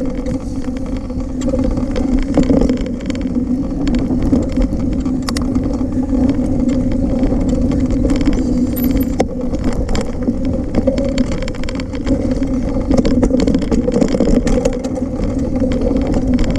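29er full-suspension mountain bike rolling along a dirt trail: continuous tyre rumble and a steady low hum from the moving bike, with scattered clicks and knocks as it rattles over bumps.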